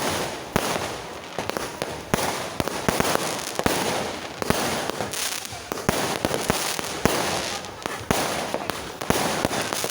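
Fireworks going off: many sharp bangs at irregular intervals, several a second at times, over a continuous crackle.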